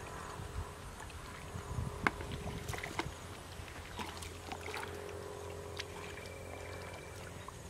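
Hands groping through shallow muddy water, with scattered small splashes, squelches and wet slaps over a steady low hum.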